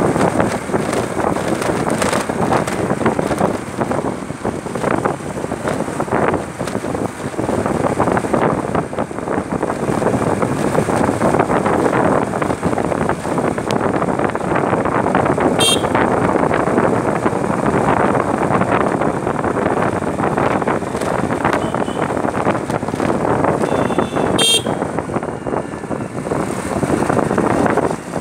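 Wind buffeting the microphone over the running engine of a moving two-wheeler. A horn beeps briefly twice, about halfway through and again near three-quarters of the way.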